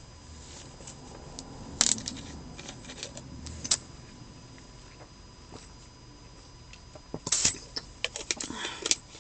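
Light handling noise: scattered clicks and small rattles, with a couple of sharper clicks in the first few seconds and a busier run of them near the end.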